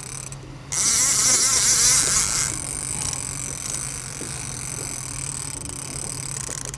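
Casting fishing reel whirring for about two seconds, starting about a second in, with an amberjack on the line. Under it runs the steady low hum of the boat's engine, with wind and sea noise.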